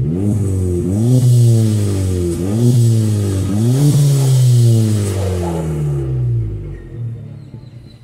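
Volkswagen Polo exhaust with the muffler removed. The engine is blipped four or five times in quick succession, the pitch jumping up and sliding back down each time, then it drops back to idle.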